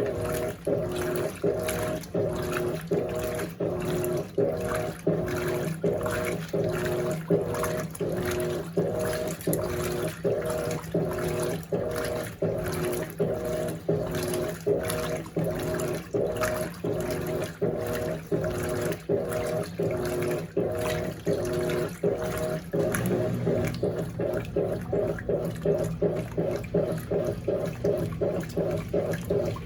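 Electrolux LAC16 top-loading washing machine, fitted with the smaller 1/4 hp motor of an LT13B, agitating a load in deep water: the motor reverses the agitator about twice a second and water sloshes with each stroke. About 23 s in the stroke quickens to about three a second and the motor hum deepens.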